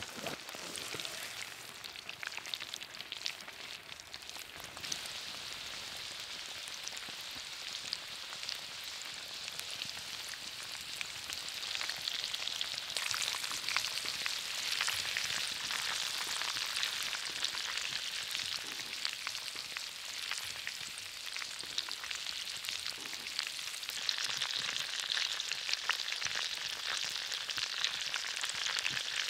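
Breaded spruce grouse cutlets shallow-frying in hot oil in a skillet: a steady sizzle full of fine pops and crackles, growing louder a little under halfway through.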